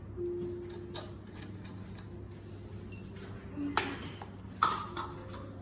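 Small metal parts and tools clicking and clinking while a core drill is being taken apart, with two sharper clinks in the second half.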